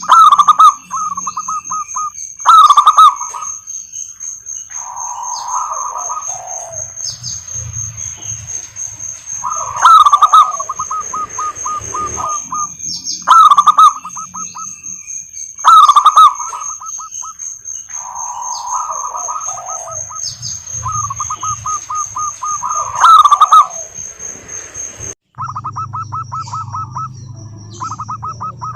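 Zebra doves cooing: repeated phrases of rapid staccato notes, several of them opening very loud. A steady high-pitched whine runs behind the calls until an abrupt splice near the end, after which a low hum comes in.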